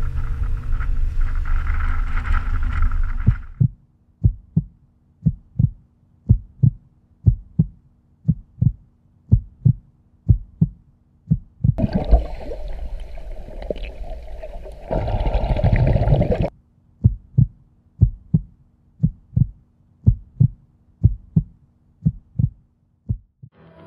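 Heartbeat sound effect: steady paired lub-dub thumps at an even pace, coming in as guitar music stops a few seconds in. Around the middle the beat gives way for about four seconds to a rushing hiss of noise in two surges, the second louder, before the thumps resume.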